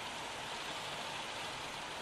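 Steady rain, an even hiss with no breaks.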